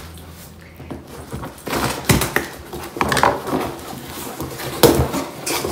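Scissors cutting the packing tape on a cardboard box and the tape and flaps being torn open: a run of irregular rasping rips, with sharp loud ones about two seconds in and near the end.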